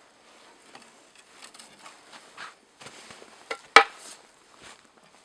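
Small metal tools being handled: faint clicks and rustles, with one sharp metallic click a little under four seconds in. No cutting tool is running.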